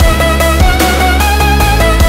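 Electronic music soundtrack with a steady beat and heavy bass under a held, wavering melody line.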